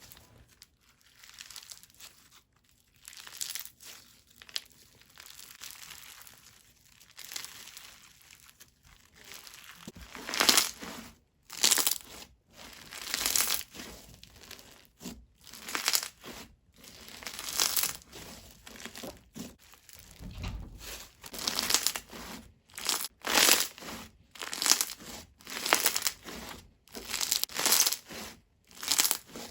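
Bingsu slime being squeezed and pressed by hand, its plastic beads crunching and crackling. It is faint for the first several seconds, then comes in repeated crunchy bursts, about one or two a second.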